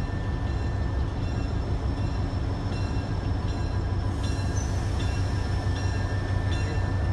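Santa Fe No. 92, an EMD FP45 diesel locomotive, rumbling steadily as it pulls a passenger train slowly forward. From about three seconds in, a high ringing repeats at short regular intervals.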